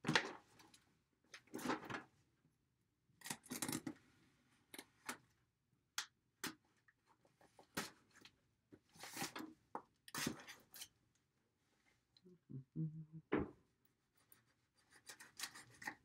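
Cardboard box being cut open and unpacked by hand with a small knife: irregular short scraping, slitting and rustling sounds with brief pauses between them.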